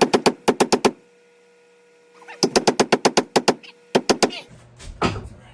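Rapid runs of sharp wooden-and-metal blows, about eight to ten a second, in three bursts, as an axe head is driven and seated onto its wooden handle. A single heavier thud follows near the end.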